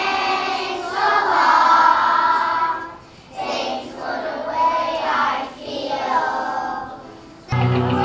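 Children's choir singing without words being spoken, in phrases with a short break about three seconds in. Just before the end it cuts abruptly to other music with a strong bass.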